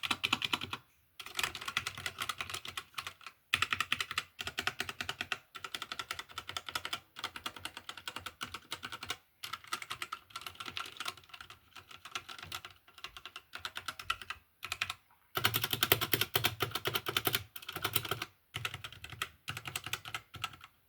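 Computer keyboard being typed on fast, in runs of rapid key clicks broken by short pauses every second or few.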